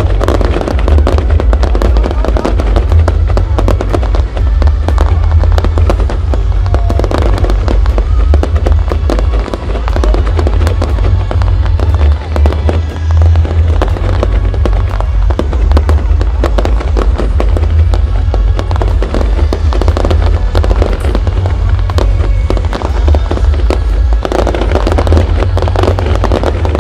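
Aerial fireworks display: a continuous, dense run of rapid cracks and bangs from bursting shells, over a heavy low rumble.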